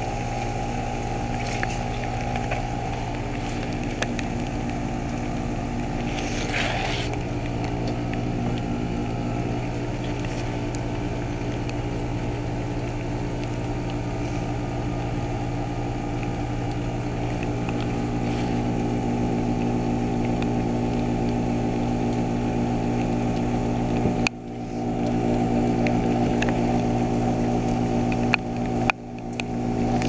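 Ruud Achiever RP14 heat pump's outdoor unit in its defrost cycle: the compressor hums steadily with the outdoor fan stopped. A brief hiss comes about seven seconds in, and a few bumps near the end.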